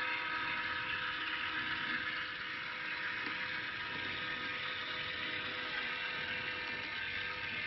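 LitterMaid automatic litter box's electric motor and gears whirring steadily as they drive the rake across the litter. This is the single rake pass the unit makes when it is switched on, before it settles into normal mode.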